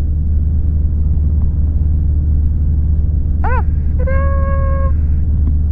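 Piper Warrior's four-cylinder Lycoming engine and propeller droning steadily in cruise, heard in the cockpit. A short rising-and-falling tone comes about three and a half seconds in, followed by a steady held tone lasting about a second.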